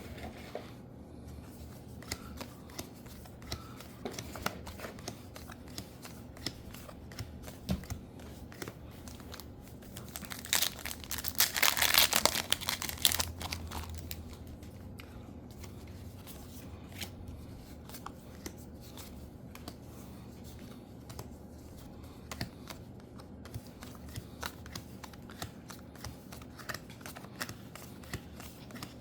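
Foil trading card booster pack crinkling as it is torn open, loudest for a few seconds in the middle, with soft clicks and rustles of cards being handled before and after.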